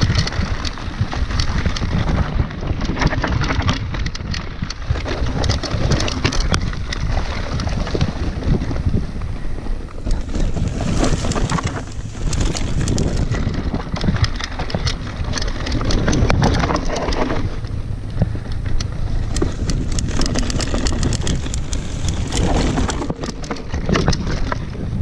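Mountain bike descending a rough grass and dirt trail: wind buffeting the camera microphone, tyres rumbling over the ground, and the bike rattling with many small knocks over bumps.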